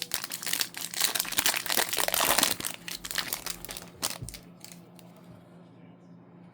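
Upper Deck hockey card pack wrapper being torn open and crinkled: a dense crackling that lasts about four seconds and is loudest midway, followed by a few light clicks.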